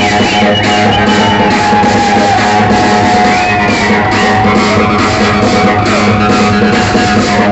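Loud music with a steady beat of about two beats a second, and a held melody line sliding in pitch above it.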